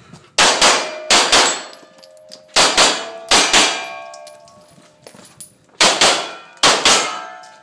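Semi-automatic pistol firing twelve shots as quick double taps, in three groups of four. Each group is followed by a metallic ringing that lingers about a second.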